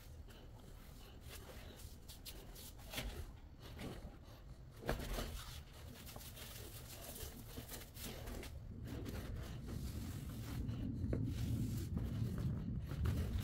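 Sponge rubbing and scrubbing over floor tiles and along the grout joints, wiping off excess grout, with a couple of sharp knocks in the first half. A low rumble builds in the second half.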